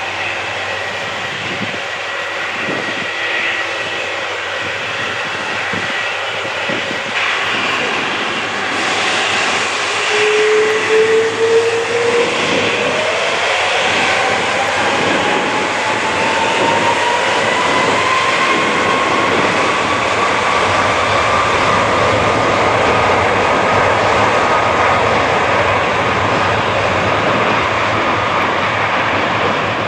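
Jet engines of a twin-engine widebody airliner (Turkish Airlines Airbus A330) running over a steady rush of engine noise. About a third of the way in, a whine rises steadily in pitch and then levels off as the engines spool up to higher thrust.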